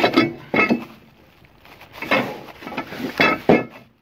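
Bubble-wrapped metal parts being handled and set down on a plywood board: several clinks and knocks with a short metallic ring, amid the rustle of plastic wrap.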